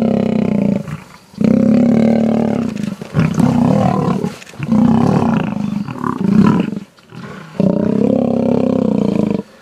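Lions roaring as several males attack a downed lion. The roars come in about five long outbursts, each a second or two, with short breaks between.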